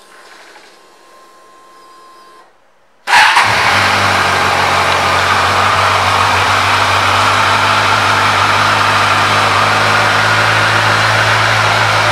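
2014 Kawasaki Ninja 1000's inline-four engine starting about three seconds in, catching at once, then idling steadily. A faint whine comes before it.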